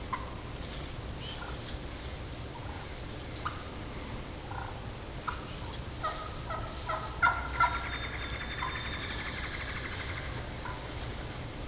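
Excited wild turkey hen calling: scattered single clucks, then a quick run of short, sharp notes about six seconds in, the loudest two near the middle of the run, as in cutting.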